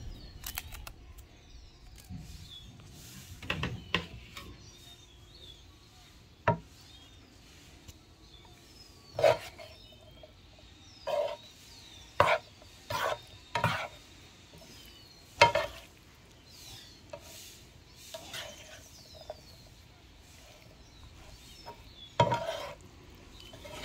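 A spatula stirring a stir-fry in a nonstick electric skillet. Irregular scrapes and knocks against the pan come about a dozen times over a faint sizzle.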